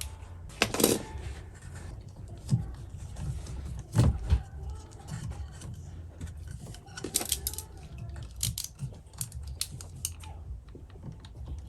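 Irregular clicks, taps and scrapes of hand work with a utility knife, cutting and trimming electrical wire. The louder knocks come about a second in and about four seconds in.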